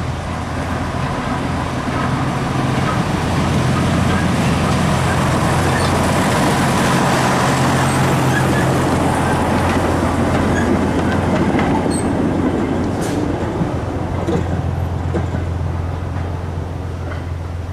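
Andrew Barclay 0-4-0 diesel shunter running past with two goods wagons, its engine drone steady and growing louder as it comes close, then easing away. A few sharp clicks from the wheels or couplings come about two thirds of the way through.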